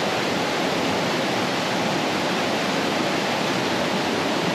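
Rushing water from a waterfall and rocky stream, a steady, even roar of water over rocks.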